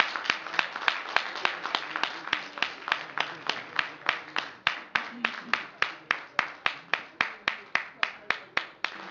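Audience applauding, the clapping falling into a steady beat of about four claps a second in unison over a thinning wash of scattered clapping.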